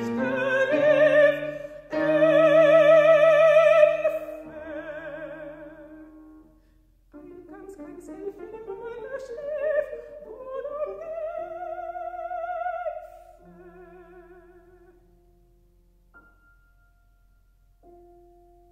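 Operatic soprano singing in German with grand piano: a loud held high note with wide vibrato, then a rising phrase. The voice falls away, and a few soft piano notes sound alone near the end.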